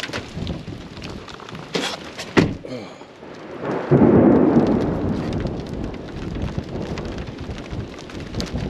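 A thunderclap about four seconds in, a loud rumble that fades away over the next few seconds. Before it, scattered raindrop ticks.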